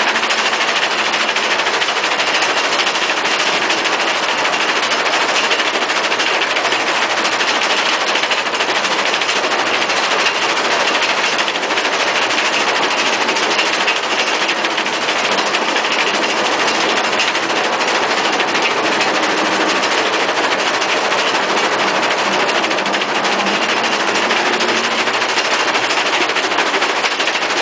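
Vibrating screen of a hooklift-mounted screening plant running steadily, crushed asphalt chunks and grit clattering and rattling across its woven wire mesh deck in a dense, continuous rattle.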